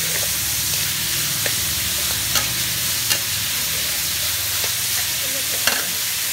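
Beef pieces sizzling in a hot metal wok as a metal spatula stirs them, with a few sharp clinks of the spatula against the pan.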